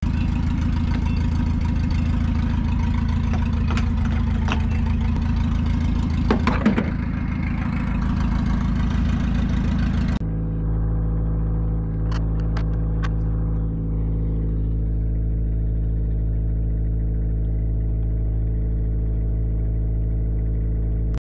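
Diesel being pumped from a fuel-station nozzle into a car's tank: a steady rush of flow over the pump's low hum, with a brief clatter about six seconds in. After a cut about ten seconds in, a steady low drone takes over, with a few sharp clicks a couple of seconds later.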